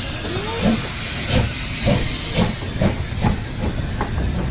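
Harz narrow-gauge steam locomotive 99 222 hissing steam loudly while moving off, with regular exhaust chuffs about twice a second that quicken slightly toward the end. A brief wavering squeal sounds right at the start.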